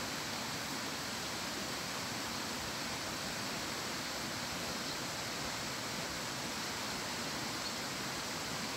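Stream rushing steadily, an even hiss that does not change.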